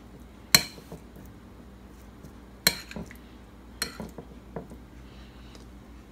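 Metal spoon clinking and scraping against a plate while scooping cabbage rice: three sharp clinks one to two seconds apart, with fainter taps between.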